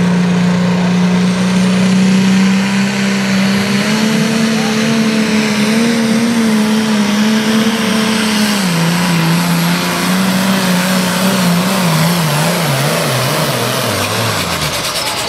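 Modified Ford pulling tractor's engine running hard under load as it drags the weight sled, its pitch steady at first. Over the last several seconds the pitch wavers and falls, and the engine note stops near the end.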